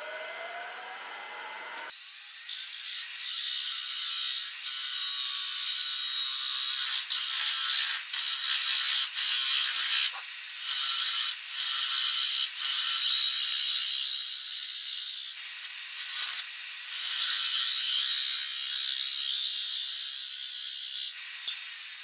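Bowl gouge cutting a spinning wooden lid on a Grizzly wood lathe: a loud, steady hiss of wood being sheared into shavings, in long runs broken by short pauses as the tool comes off the cut. For the first two seconds only the lathe's motor whine is heard, rising in pitch.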